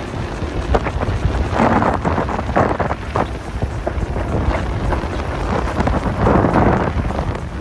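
Wind buffeting the microphone on a sailboat's foredeck under sail, a steady low rumble, with louder rushes of water hissing along the bow as it cuts through the waves, about two seconds in and again near six seconds.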